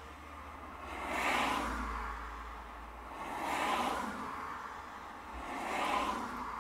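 Cars passing one after another on the road beside a stopped car, heard from inside the cabin: three whooshes that swell and fade, about two seconds apart, over a low rumble.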